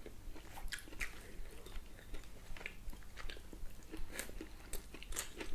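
Close-up eating sounds: biting and chewing grilled beef steak and zucchini, with scattered short clicks throughout.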